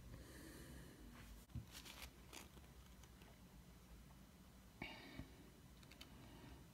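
Near silence: faint room tone with a few soft clicks and handling noises, a pair about a second and a half to two and a half seconds in and another pair about five seconds in.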